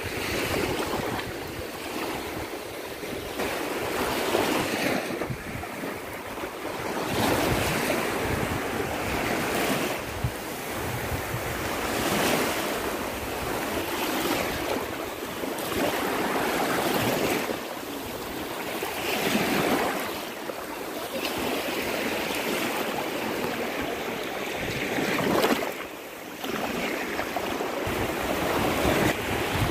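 Small waves washing in and out over sand in shallow water, swelling and ebbing every couple of seconds, with wind on the microphone.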